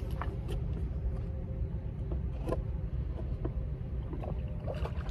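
Steady low rumble of wind and water lapping around a small boat, with a few faint knocks and taps while a caught hybrid striped bass is lowered back into the water.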